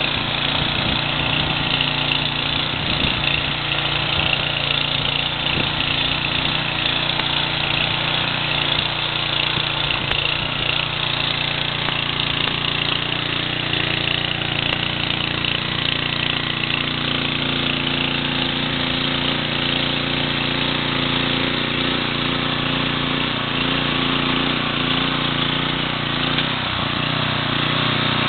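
Viking HB 585 garden tiller with its Kohler engine running steadily under load while its rotating tines churn through soil.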